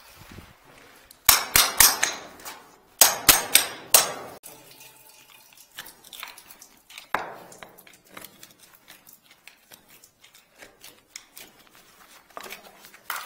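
Metal clanking and knocking from drain-cleaning tools and pipe fittings being handled: a quick run of sharp clanks about a second in and another around three seconds in, then lighter scattered taps and clicks.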